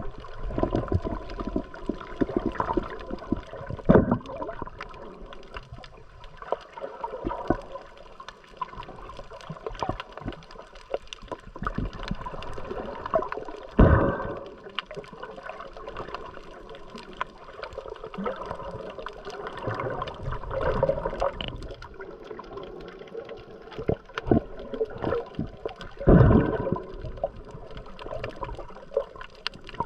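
Water gurgling and sloshing around the camera while snorkelling, with irregular splashes. The loudest splashes come about 4, 14 and 26 seconds in.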